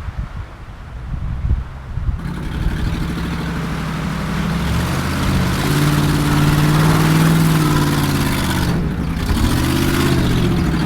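Land Rover Discovery 2 engine revving under load while driving off-road. It comes up after a couple of seconds of low rumble, climbs in pitch through the middle, drops briefly near the end and then picks up again.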